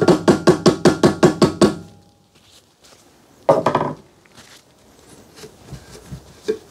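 Rapid light mallet taps, about five a second for roughly two seconds, driving a new seal flush into the steel A-arm pivot bore over its bearing. A single louder knock follows about three and a half seconds in, then faint handling clatter.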